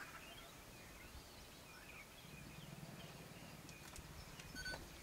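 Near silence: faint outdoor ambience with a few faint chirps, and a soft low hum for about two seconds in the second half.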